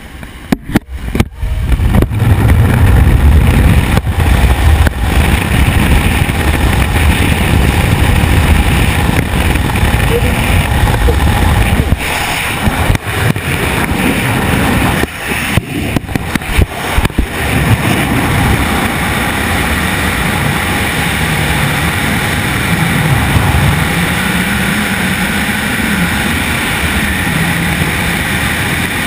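Jump plane's engine and wind noise buffeting the camera microphone by the open door, then a steady rush of freefall wind over the camera as the wingsuits fly. The sound cuts out briefly several times about halfway through, then evens out.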